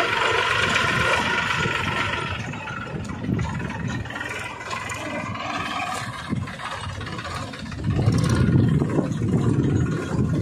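The small engine of a homemade mini tractor runs with a clatter as it tows a loaded trailer, and it gets louder about eight seconds in.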